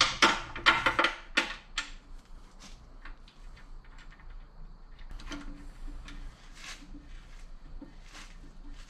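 Metal tools and hardware clinking and clicking during hands-on mechanical work. A quick run of sharp, loud clicks comes in the first second or so, followed by lighter, irregular ticks and taps.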